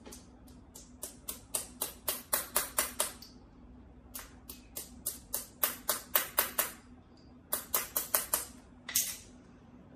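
Screwdriver worked against a small metal part of a slingshot rifle: three runs of sharp, rapid clicks, about four a second.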